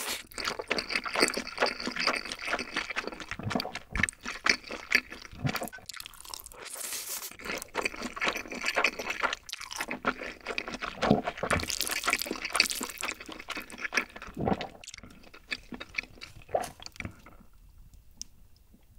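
Close-miked slurping and wet chewing of sticky black-bean-sauce (jjajang) ramen noodles. A few long slurps come between stretches of moist chewing, and it all dies away a little before the end.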